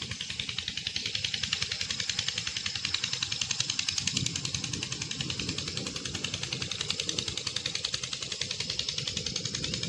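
Heavy rain falling, a steady hiss with a fast, even flutter running through it.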